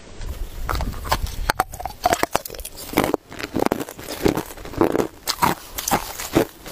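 A person biting and chewing crushed ice, with irregular crisp crunches two or three a second.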